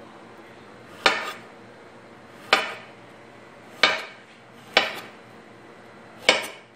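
Metal pots and utensils clanking in a kitchen: five sharp knocks, about one to one and a half seconds apart, each ringing briefly.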